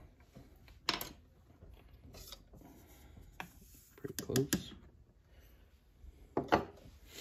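Scattered light clicks and knocks of a reloading scale's powder pan, a funnel and a plastic powder bottle being handled at a bench: a few separate taps a second or so apart, with a small cluster about four seconds in.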